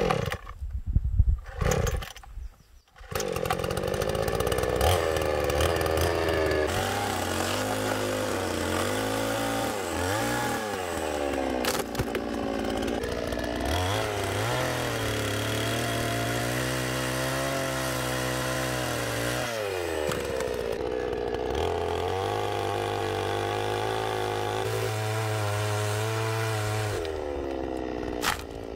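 Chainsaw running as it cuts branches from a fruit tree, its engine pitch rising and falling as it revs and works through the wood. It begins about three seconds in, after a few loud sudden sounds, and dips briefly near the end.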